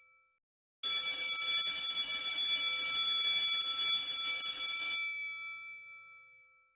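Electric bell ringing steadily for about four seconds, starting about a second in, then dying away over a second or so.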